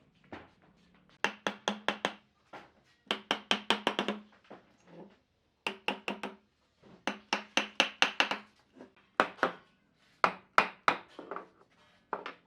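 A hammer tapping on wood in quick bursts of several sharp, ringing strikes, about six to eight a second, with short pauses between bursts.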